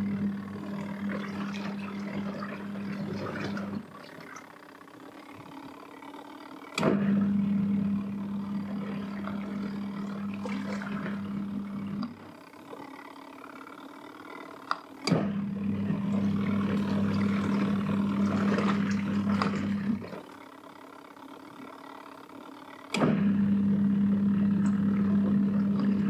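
Portable mini washing machine on its wash cycle: the agitator motor hums in runs of about five seconds, stopping for about three seconds between runs, while the clothes and water slosh in the tub.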